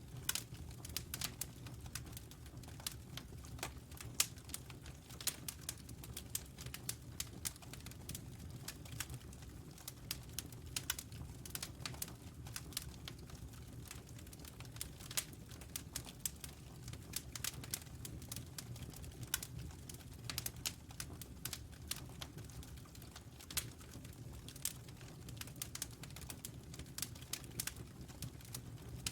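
Wood fire crackling, with frequent irregular pops and snaps over a low steady rumble.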